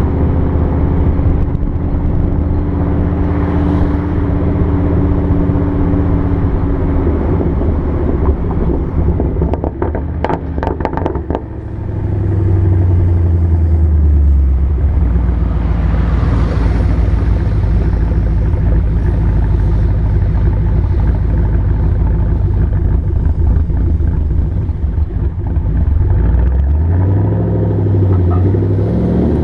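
2014 Ford Mustang GT's V8 through Roush axle-back exhausts with the resonators deleted, driving and revving. About ten seconds in, as the engine slows, a quick string of exhaust pops and crackles, the deceleration crackle brought on by the Ford Racing Track Cal tune, then the engine pulls again with a rising note.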